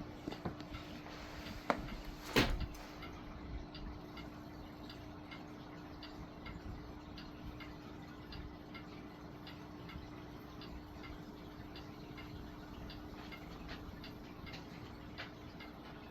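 Vintage Lakewood Country Aire box fan with a Westinghouse motor running on low speed: a steady motor hum with a regular light ticking. Two sharper knocks come about two seconds in.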